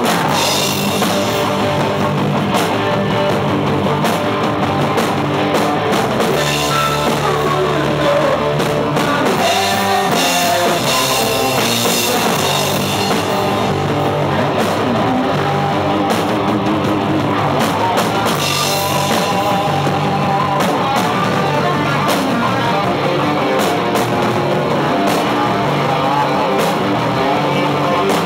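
Live rock band playing loud and steady: a drum kit with cymbals, and electric guitars through amplifiers.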